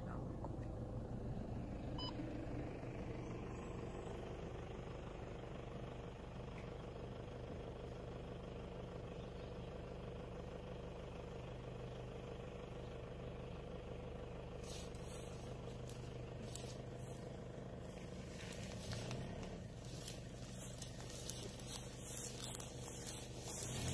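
Vehicle engine idling steadily with a low hum. In the second half, scattered sharp clicks and crackles.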